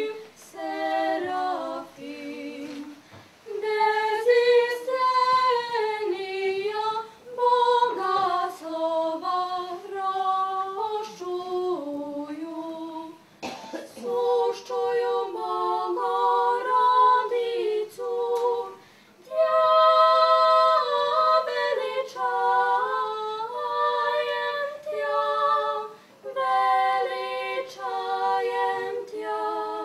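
Two women singing together without accompaniment, in sung phrases separated by short pauses.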